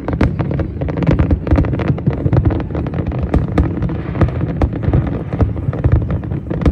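Fireworks display: a dense, unbroken stream of rapid bangs and crackles over a low rumble.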